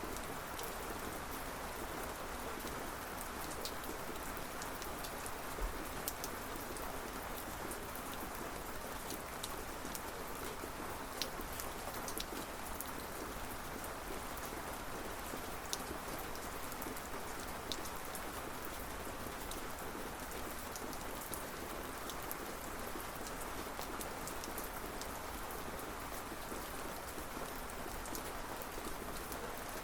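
Steady rain falling, an even hiss with scattered individual drops ticking on a surface. No thunder is heard.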